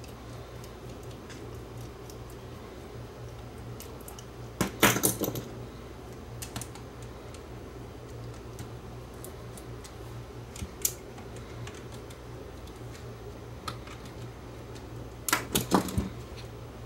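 Small metal clicks and rattles from a Nakamichi DR-2 cassette transport being handled and screwed together: two short clattering bursts, about five seconds in and near the end, with a few light ticks between, over a steady low hum.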